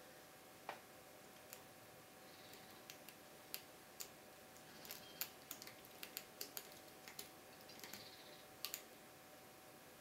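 Small, irregular metallic clicks and ticks of a pick raking and setting the pins inside a Keso 2000 lock cylinder held under tension; sparse at first, coming thick and fast over the second half.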